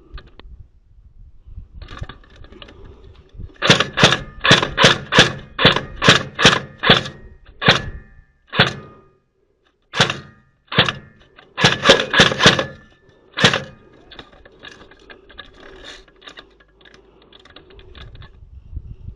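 Airsoft rifle firing a string of single shots, sharp cracks about three a second at first, then slower and spaced out with a pause, ending near the end.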